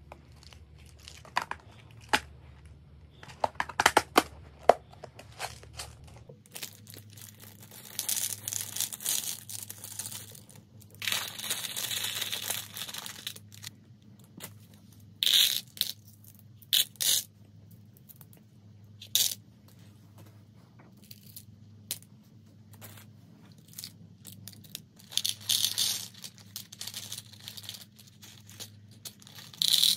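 Small plastic beads clicking and rattling as they drop into a clear plastic compartment box, with rustling and crinkling of small plastic zip bags being opened and emptied. Sharp clicks come mostly in the first few seconds, and longer stretches of bag rustling come later.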